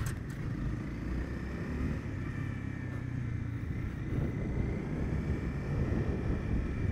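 Onboard sound of a Honda CB300F's single-cylinder engine running steadily while riding in traffic, mixed with road and wind noise.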